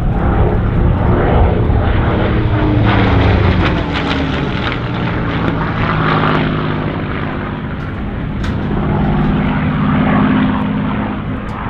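Supermarine Spitfire's Rolls-Royce Merlin V12 engine in flight, the engine note sliding down in pitch a couple of seconds in, then holding a steady drone.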